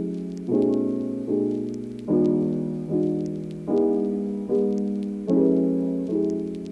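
Background piano music: soft chords struck about every second and fading away each time, at a slow, even pace.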